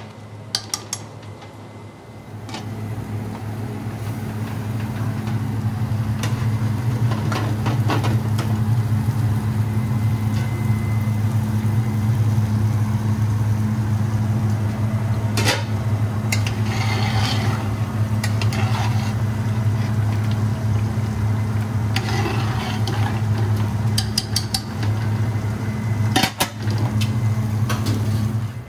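Steady low roar of high-powered restaurant gas burners under the cooking pots, swelling over the first few seconds and then holding. A few sharp clinks of a metal ladle against the pans.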